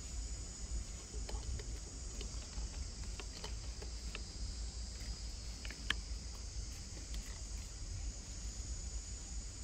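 Steady high-pitched insect drone, with a low wind rumble on the microphone and a few faint clicks, the sharpest about six seconds in.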